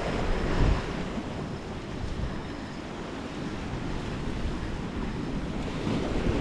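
Sea surf washing against a rocky shoreline, with wind buffeting the microphone and a stronger gust about half a second in.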